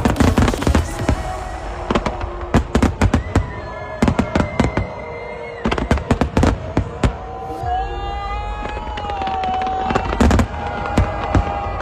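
Fireworks going off: many sharp bangs and cracks, often in quick clusters, with music playing underneath.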